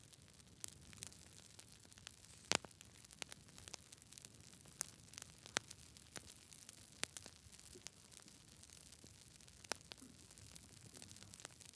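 Wood campfire crackling: irregular sharp pops and snaps over a faint steady hiss, the loudest pop about two and a half seconds in.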